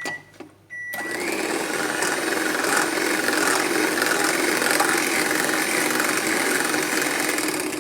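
Electric hand mixer beating cake batter, running steadily at one speed; it starts about a second in, just after a couple of short high tones.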